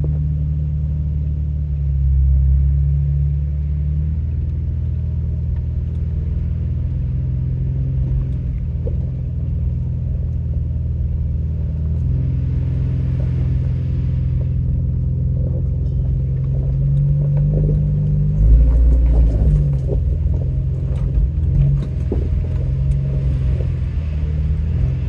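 Vehicle engine running in low gear on a rough off-road trail, heard from inside the cabin, its note stepping up and down with the throttle. A heavy low jolt about eighteen seconds in is the loudest moment.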